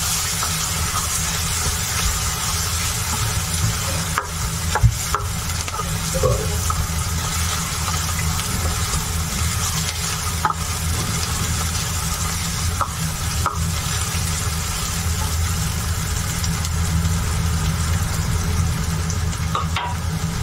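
Chopped onions sizzling steadily as they fry in oil in a steel pan, browning, with a spatula scraping and knocking against the pan now and then as they are stirred, over a steady low hum.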